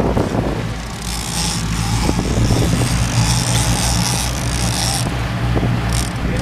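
Boat engine running steadily, with a hiss of wind and water rushing by from about a second in until about a second before the end.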